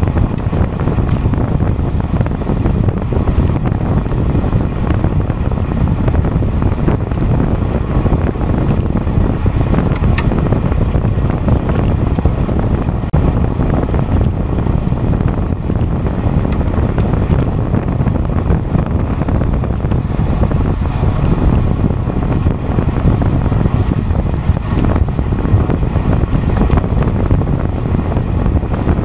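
Wind blowing across the microphone of a camera carried on a road bicycle at time-trial speed, a steady, loud low rumble.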